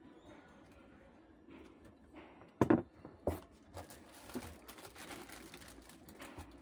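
Plastic wrapping crinkling and rustling in irregular crackles from about four seconds in, as the bagged hot air rework station is handled, after a single dull thump about two and a half seconds in.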